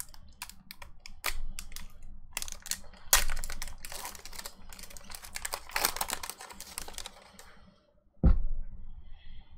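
Foil Pokémon booster-pack wrapper being crinkled and torn open by hand: a rapid run of sharp crackles and rustling. A single low thump near the end is the loudest sound.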